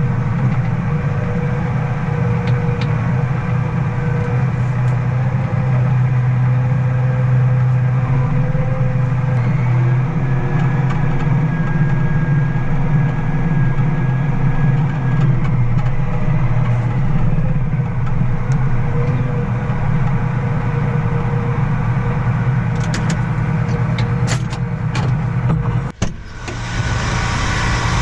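Farm vehicle engine running at a steady speed, a continuous low drone. About 26 seconds in it breaks off abruptly and gives way to a brighter engine sound with more hiss.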